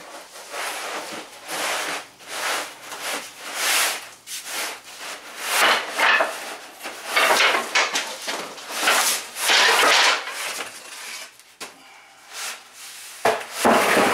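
A rolled sheet of thin wood ceiling paneling scraping and sliding against the inside of a tall cardboard box as it is pulled up and out. It comes as a series of rubbing swishes, busiest in the middle and quieter near the end.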